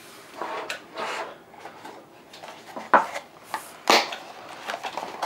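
Small cardboard blind boxes and foil packets being handled and opened on a table, rubbing and rustling, with two sharp knocks about three and four seconds in as something is set down on the tabletop.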